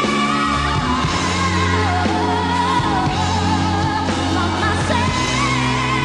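A woman singing live with a band: long, wavering held notes and a vocal run that climbs higher near the end, over steady sustained backing chords.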